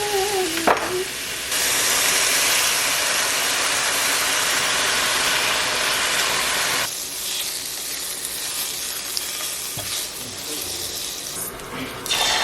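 King trumpet mushrooms sizzling as they fry in a pan, a steady hiss that is louder for the first several seconds and drops softer about seven seconds in.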